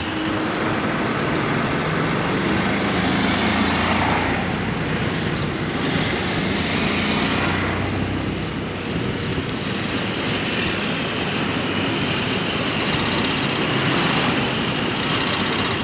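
Motorcycle engine running steadily while riding along a road, with wind rushing over the microphone.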